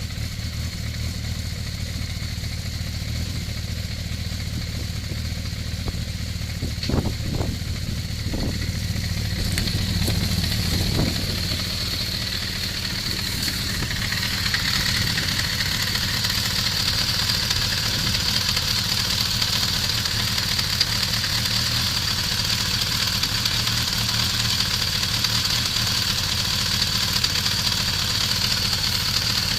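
Kawasaki ZZR400 motorcycle's inline-four engine idling with a knock that the owner is recording to find its cause. A few brief louder strokes come about a quarter of the way in, and a steady high whine grows stronger around the middle.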